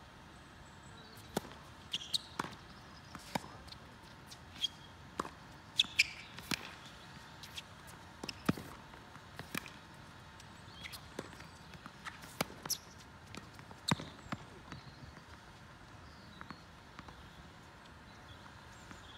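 Tennis rally: a string of sharp pops as the ball is struck by rackets and bounces on the hard court, irregularly spaced, tailing off near the end.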